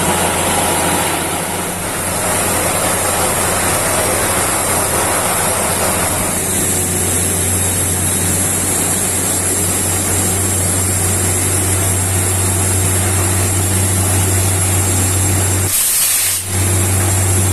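Truck-mounted borewell drilling rig running, a loud steady low hum with a steady hiss over it, with a brief change about sixteen seconds in.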